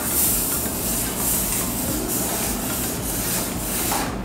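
Spatulas scraping and spreading melted chocolate across a granite slab in a steady, continuous scrape: the chocolate being tabled to cool it for tempering.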